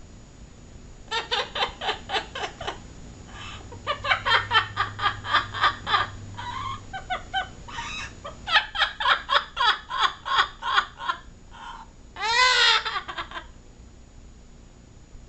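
Parrot laughing in long runs of rapid ha-ha-ha pulses, with one loud squawk that rises and falls in pitch near the end.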